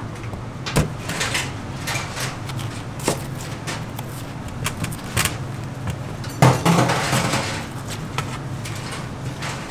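Metal spoon scraping seeds and stringy pulp out of a halved pumpkin, with scattered sharp knocks and clatter. The loudest knock comes about six and a half seconds in, followed by a burst of scraping, over a steady low hum.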